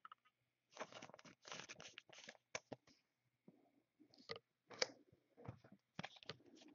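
Faint plastic rustles and light clicks of a trading card being handled in a clear plastic sleeve and rigid toploader. The sounds come as scattered short rustles, with a cluster in the first couple of seconds and single clicks after that.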